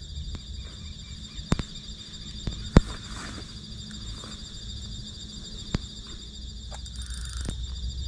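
Steady high-pitched chirring of insects such as crickets, with a low rumble underneath. Three sharp clicks cut through it, about one and a half, three and six seconds in, the second the loudest.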